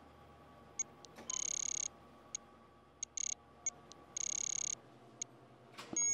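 Exergen TAT-5000 temporal artery thermometer beeping during a scan: about ten short, high electronic beeps at uneven spacing, two of them held for about half a second. This beeping is the sign that the scanner is registering a rising temperature.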